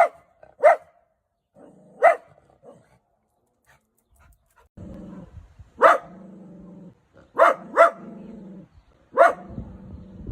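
A dachshund barking in short, sharp single barks, about seven in all, with low growling between them.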